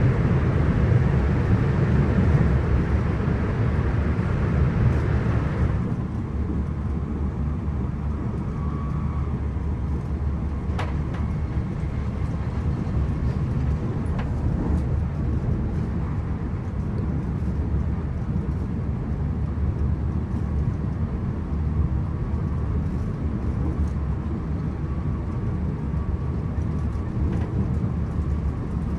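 Interior running noise of a Hitachi AT300 electric multiple-unit train travelling along the line: a steady low rumble with rolling hiss. About six seconds in, the higher hiss drops away and the sound becomes a little quieter and duller. A faint tick comes about eleven seconds in.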